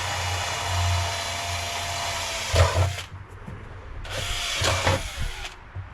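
Power drill running in two runs: one of about three seconds with a knock near its end, then, after a short pause, a second shorter run.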